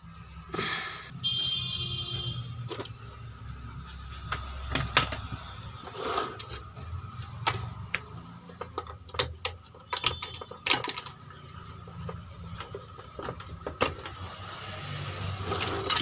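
Scattered clicks, knocks and rattles of hands handling the wiring and plastic connectors inside the opened chassis of a CRT television, as the deflection yoke wires are pulled loose.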